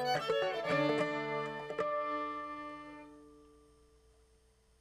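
Cigar box fiddle and clawhammer banjo playing the last notes of an old-time tune. A final note is struck about two seconds in, rings out and fades away to silence.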